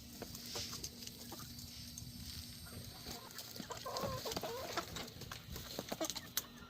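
Chickens clucking, with a few short calls about four seconds in, among scattered light clicks.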